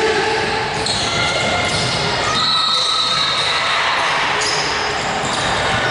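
Basketball game sounds echoing in a large gym: a ball bouncing on the hardwood floor, sneakers squeaking, and scattered shouts from players and onlookers.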